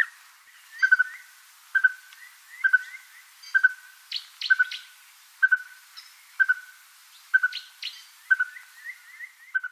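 Red-fronted tinkerbird calling: a steady series of short single notes at about one a second. Fainter, higher brief notes fall between them.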